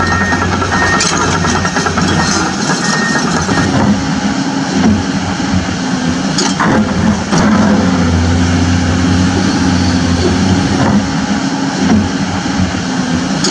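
Excavator engine sound running steadily with a low hum, a couple of sharp clicks sounding about halfway through.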